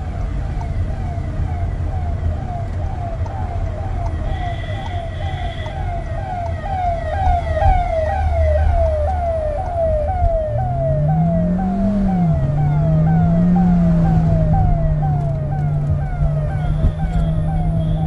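Ambulance siren sounding a fast yelp, about three falling sweeps a second, loudest near the middle, heard from inside a car cabin over road noise. About ten seconds in, the car's 1.5 TSI four-cylinder petrol engine climbs in revs, drops with an automatic gearshift, then holds steady.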